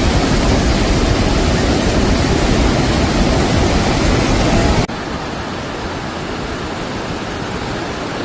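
Steady rush of water from the Iguazú Falls. About five seconds in it cuts suddenly to a quieter, duller rush.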